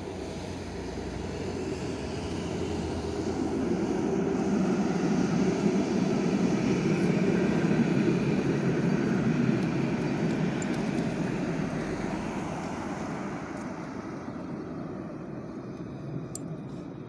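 Alstom Citadis tram passing close by: its running noise swells over several seconds, is loudest around the middle, then fades as it moves away.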